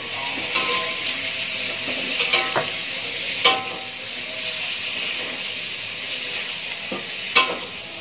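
Garlic, galangal and bay leaves sizzling in hot oil in a wok, stirred with a metal spatula. The spatula scrapes and clanks against the wok several times, the loudest clanks about three and a half seconds in and near the end.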